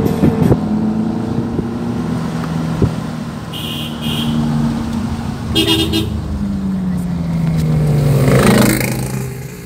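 A car is driving, its engine running steadily and heard from inside the cabin. A horn toots twice briefly about three and a half seconds in, then once more, longer, about six seconds in. Near the end the engine's pitch falls as the car slows.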